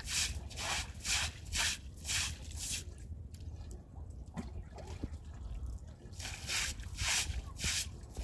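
Straw hand broom scrubbing a wet stone floor in quick swishes, about two a second, with a pause of some three seconds in the middle, along with water dripping and trickling.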